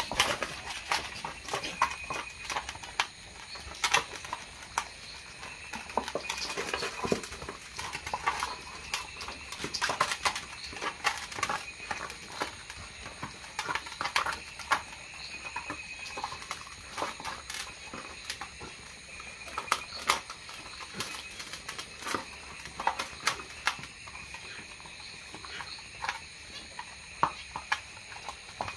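Several dogs eating together from one shared bowl: a busy, irregular run of short smacking and chewing clicks.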